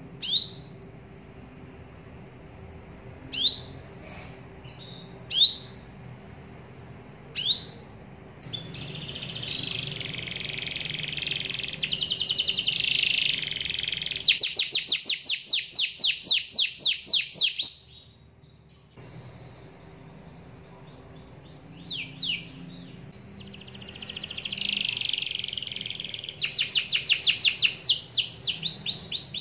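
Domestic canary singing: first a few single rising chirps a couple of seconds apart, then a high warbling song that breaks into a fast trill of rapid repeated notes. After a short pause it starts again and builds into the same fast trill near the end.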